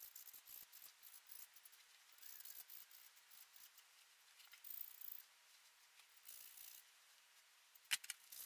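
Near silence with a few faint, short scrapes as a steel bar is handled, and a light click near the end.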